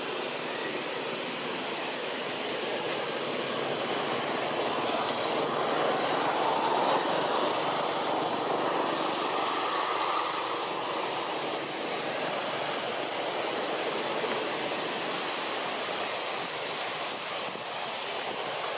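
Distant engine noise that swells over several seconds and fades again, over a steady outdoor background hiss.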